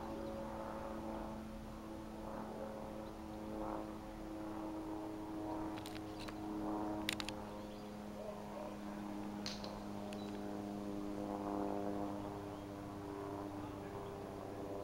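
Small propeller-driven canard aircraft passing low overhead, its engine and propeller giving a steady droning hum of several pitches that drift slightly.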